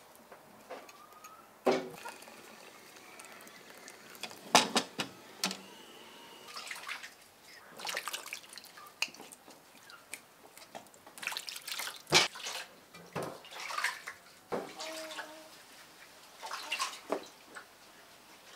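Whole beetroots being washed by hand in a metal basin of water: irregular splashes, sloshes and drips as the beets are rubbed, lifted and dropped back in.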